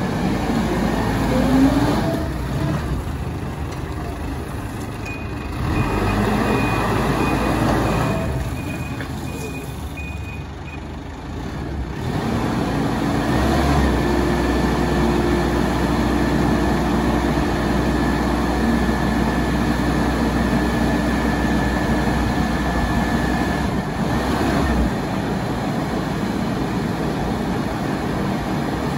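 Barford 10-tonne swivel dumper's diesel engine running. From about a third of the way in, it is held at higher revs for about ten seconds with a deeper rumble and a steady whine while the hydraulics work the skip. A faint intermittent beeping sounds a few seconds in.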